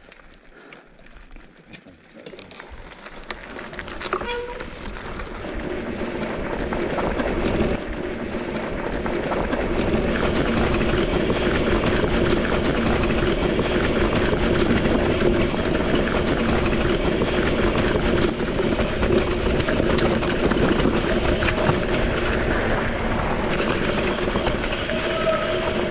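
Santa Cruz mountain bike rolling downhill over loose, rocky volcanic trail, tyres crunching and the bike rattling, with wind noise on the action camera's microphone. It starts quiet and builds over the first ten seconds as speed picks up, then holds a steady, dense rattle.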